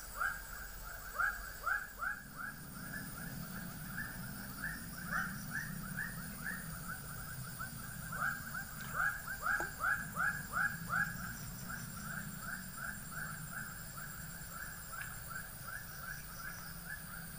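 An animal calling over and over in short downward-sliding notes, about three a second, without a break, over a steady low hum.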